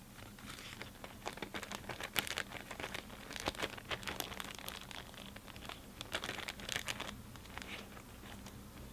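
Thin plastic storage bags crinkling as they are handled, an irregular run of crackles that dies down near the end.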